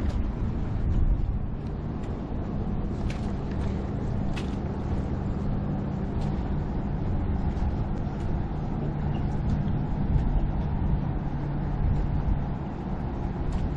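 Wind rumbling on the microphone over a steady low engine hum from motor traffic or a passing boat.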